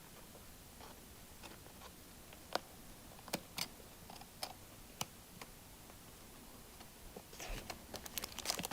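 Faint scattered clicks and crinkles of a small toy package being handled and opened, growing into a denser run of rustling near the end.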